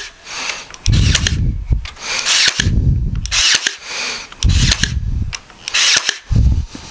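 Ryobi cordless brad nailer firing brads into Western red cedar, about five or six shots in a row. Each shot is a short whir of the tool's motor ending in a bang.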